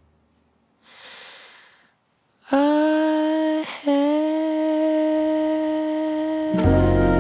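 A short breath, then one long held note that slides up slightly as it starts and breaks off briefly in the middle, before the jazz band comes in with a full sustained chord near the end.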